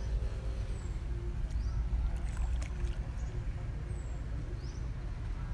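Outdoor ambience at open water: a steady low rumble with faint water movement around a swimmer, and faint short high chirps about once a second.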